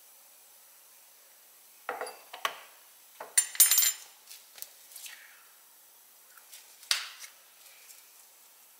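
Metal spoon scraping and clinking against a ceramic plate of fried rice: a few knocks about two seconds in, a bright cluster of clinks around three and a half seconds in, and one more clink near seven seconds.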